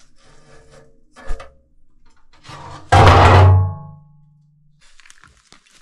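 A single loud, sudden deep boom a few seconds in, its low hum ringing on for about a second and a half, after a shorter thud about a second in.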